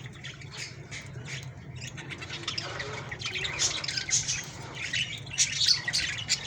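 Many small birds chirping and squawking at once, short calls overlapping, busier and louder from about halfway through. A steady low hum runs underneath.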